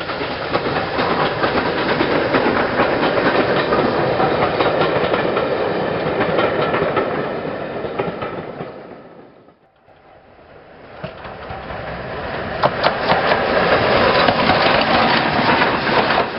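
GNR Class N2 0-6-2 tank steam locomotive running past with its train, the sound swelling and then fading away. After a sudden break, a steam train passes close by, its wheels clicking over the rail joints.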